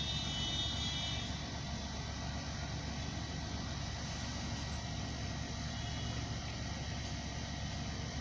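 Steady low rumble of a car's engine and tyres heard from inside the cabin while driving, with a faint high tone in about the first second.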